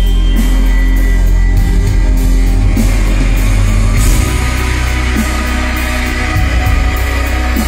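Live rock band playing loud through a venue's PA, heard from within the crowd, with heavy bass and steady drums. The deepest bass eases a little about four seconds in.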